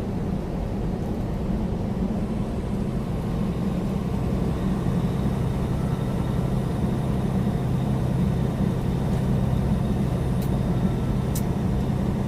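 Steady low drone of a semi truck's diesel engine and tyres at highway speed, heard inside the cab, with two faint clicks near the end.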